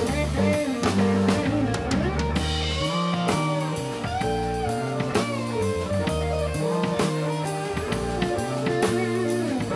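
Live band playing with electric bass, electric guitar, keyboard and drum kit, a steady loud groove with bending melody notes over it.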